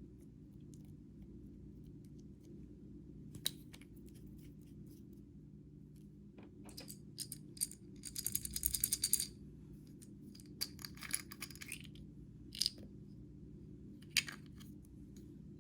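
Makeup and nail-polish containers handled: scattered sharp clicks of hard plastic or glass, with a quick rattling run about eight seconds in. A steady low hum underneath.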